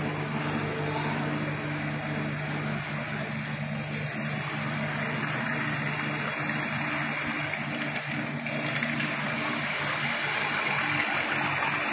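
Sodick die-sinking EDM machine at work: a steady electrical hum under an even hissing crackle as the copper electrode sparks in the dielectric fluid. It gets a little louder about eight seconds in.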